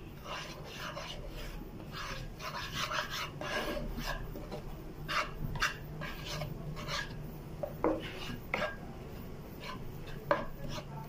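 Metal spatula scraping and stirring butter and flour, being fried into a roux, around a frying pan in short, irregular repeated strokes.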